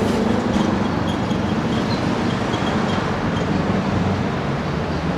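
Keikyu Airport Line train running past at close range, a loud steady rumble of wheels on the rails with faint scattered ticks.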